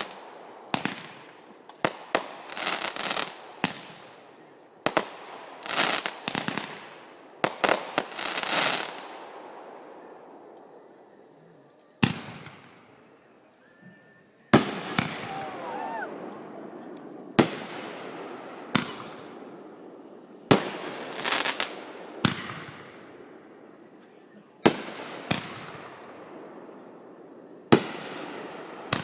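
Backyard fireworks going off: a rapid string of sharp bangs with crackling, fading tails over the first several seconds, then after a short lull single bangs every second or two.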